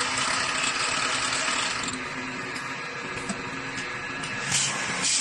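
CNC lathe running, a steady mechanical hiss that eases a little about two seconds in, with two short louder bursts of noise near the end.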